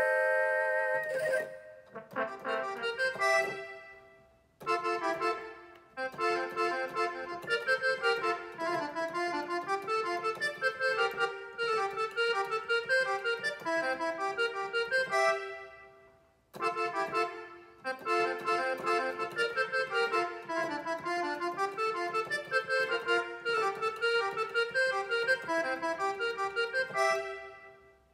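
Roland XP-10 synthesizer played by hand: a quick melody over lower notes in one of its preset sounds. The phrases break off twice, about four seconds in and again about sixteen seconds in.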